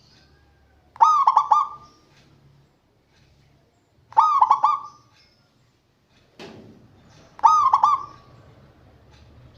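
Zebra dove (perkutut) cooing its song three times, about three seconds apart; each call is a short run of quick, rolling notes. A brief rustle or thump comes just before the third call.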